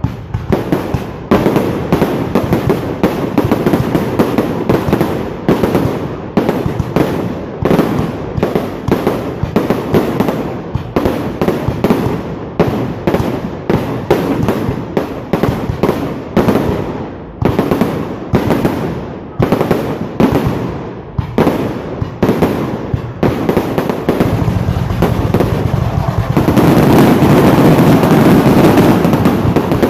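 Fireworks going off in a rapid string of bangs, several a second. About three-quarters of the way through they merge into a dense, continuous barrage, the loudest part.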